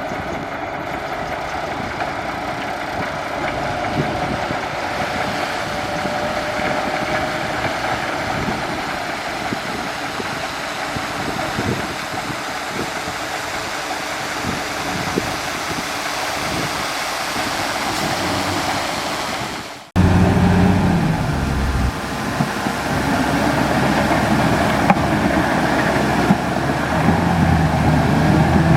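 Large bulldozer's diesel engine running while it pushes dirt, a rough, uneven rumble. About twenty seconds in the sound cuts off abruptly and returns louder, as a steadier engine drone.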